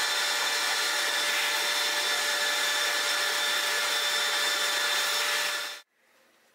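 Parkside angle grinder running at steady speed with a wire wheel brush, scouring rust off a cast electric-motor end bell: a loud, steady whine over rough hiss. It cuts off abruptly near the end.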